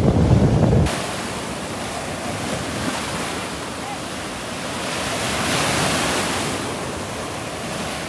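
Small surf breaking and washing up the sand in a steady rush, swelling as a wave breaks about five to six seconds in. Wind buffets the microphone with a low rumble for the first second, then stops abruptly.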